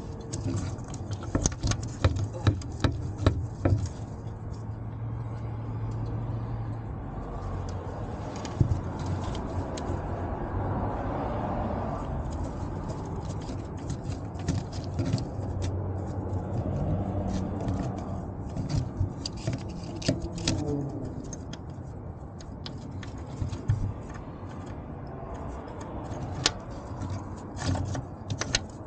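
Hand tools clicking and clinking on metal while a new oil pressure switch is fitted and tightened with a socket above the oil filter: scattered sharp clicks in clusters over a steady low hum.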